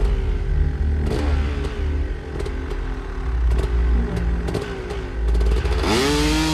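Trials motorcycle engine revving in short repeated blips, with sharp knocks and clatter in between. About six seconds in, a louder sustained sound swells up.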